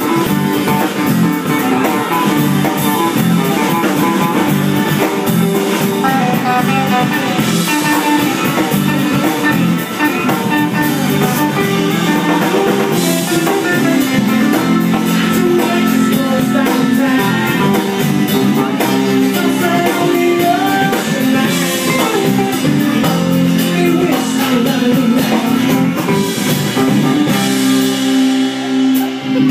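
Loud pop-rock song with guitar, drums and singing.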